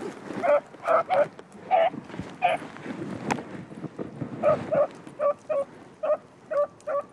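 A dog barking in short, repeated barks, often two in quick succession, with a pause of about two seconds midway before it starts again.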